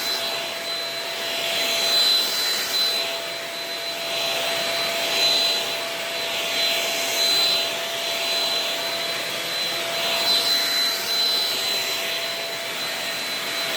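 Shark Rocket corded stick vacuum running: a steady high motor whine over a rush of air that swells and fades every couple of seconds.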